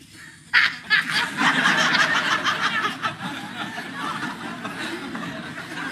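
Studio audience laughing, starting suddenly about half a second in, loudest for the first couple of seconds and then easing off but carrying on.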